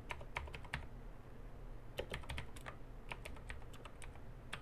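Typing on a computer keyboard: a quick run of keystrokes, a pause of about a second, then another run.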